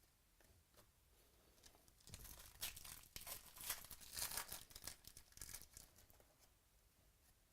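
A 2017 Certified football trading-card pack wrapper being torn open and crinkled: a crackly burst of tearing and crinkling that starts about two seconds in and lasts about four seconds.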